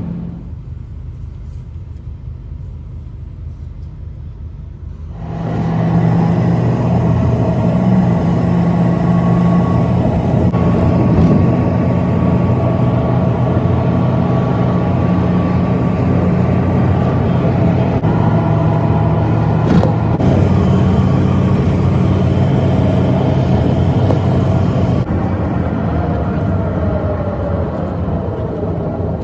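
Car driving on a highway, heard from inside the car. For the first five seconds there is a quiet low rumble. Then it turns abruptly much louder, with a steady engine hum and road noise that run on unchanged.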